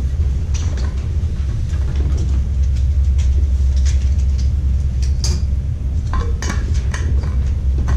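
A steady low rumble of room noise, with scattered rustles and light knocks as paper forms are handled at a table, busiest a little past the middle.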